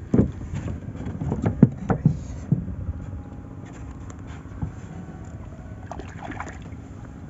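Fishing longline being hauled in by hand over the side of a wooden boat and laid into a plastic crate: a quick run of knocks and thumps in the first couple of seconds, one more a little later, over a steady low background.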